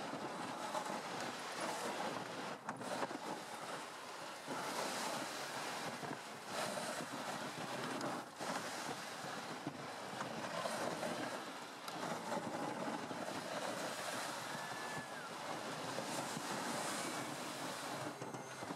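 MTT-136 tracked robotic vehicle travelling over a snowy trail: a steady rushing noise from its tracks on the snow, with wind on the microphone.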